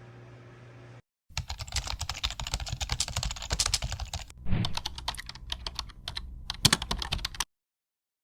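Rapid, irregular clicking and tapping, like typing on a keyboard, starting suddenly about a second in and cutting off abruptly near the end.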